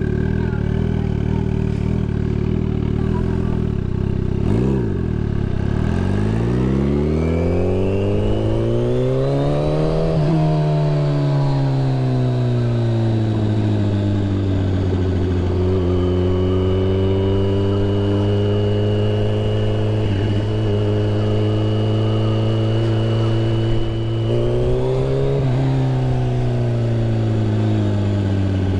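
Turbocharged Suzuki Hayabusa's inline-four engine heard from the saddle, running at low revs, then pulling away about six seconds in with its pitch climbing steeply for several seconds before falling back and cruising steadily. A short throttle rise and fall comes near the end. A thin high whine climbs with the revs and holds while cruising.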